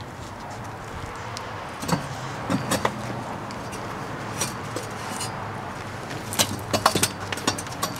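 Cigarettes being crushed under a person sitting on them on a padded stool, giving two clusters of short sharp crackles and clicks, about two seconds in and again around six and a half to seven seconds, over a steady low hum.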